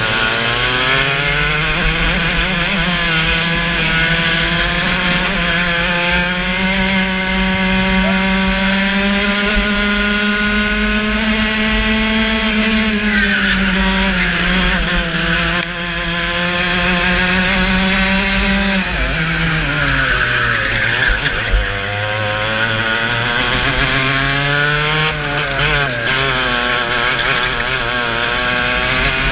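Racing go-kart engine heard onboard at speed: revs climb, hold high, drop sharply about two-thirds of the way through as the kart slows for a corner, then climb again.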